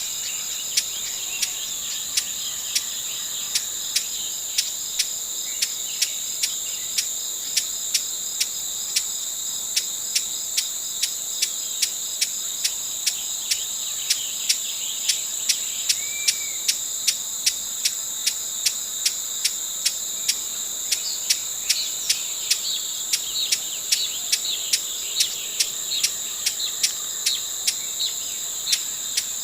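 A steady high insect chorus, with dry sharp ticks about twice a second. In the second half come quick, short high notes, the chip calls of a broad-billed hummingbird.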